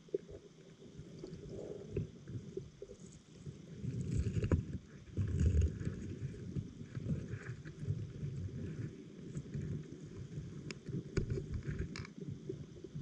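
Underwater ambience picked up by a GoPro in its waterproof housing: an uneven, muffled low rumble of moving water, loudest about four to six seconds in, with a few faint sharp clicks near the end.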